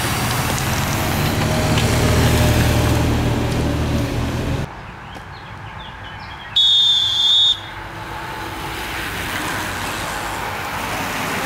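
Road-race noise at the roadside: a steady rush with a low rumble as the bunch and its vehicles pass close, cut off sharply about five seconds in. After that comes a quieter road sound that slowly builds, and a shrill whistle blown once for about a second, about seven seconds in.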